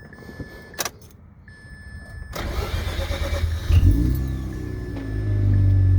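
Mazda RX-8's Renesis rotary engine being started: a click and a thin steady chime tone, then the starter cranks for about a second and a half before the engine catches with a rev flare just before four seconds in and settles into a fast idle. It fires readily despite having been shut off after a very short drive, which the owner takes as the sign of healthy ignition, fuel, compression and battery.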